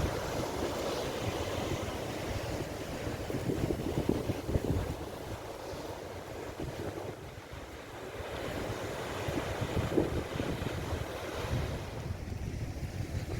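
Wind buffeting the microphone over the wash of sea waves on the shore. The gusts come and go unevenly, easing off for a couple of seconds around the middle.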